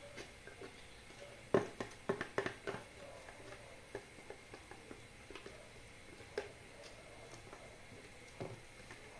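Spatula tapping and scraping against a blender jar while carrot cake batter is poured into a plastic mixing bowl: scattered light clicks and taps, a quick cluster about a second and a half in, then a few single ones.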